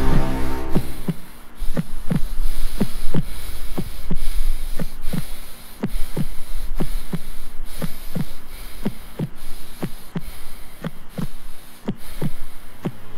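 Steady pulse of short, low percussive thuds, about two to three a second, over a faint low drone: a soundtrack beat like a heartbeat effect.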